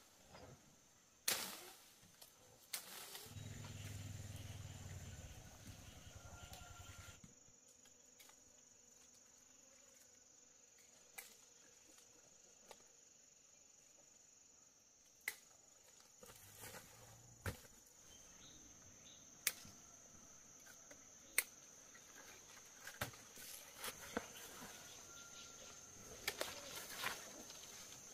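Insects trilling in one steady high tone, with scattered sharp clicks, the loudest sounds here, and a brief low rumble a few seconds in.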